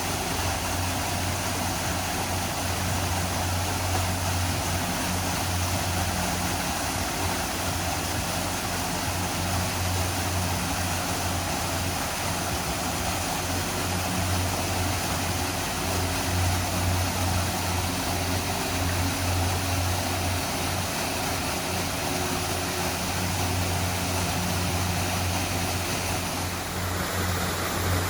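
Waterfall: a steady rush of falling water, with a steady low engine hum underneath.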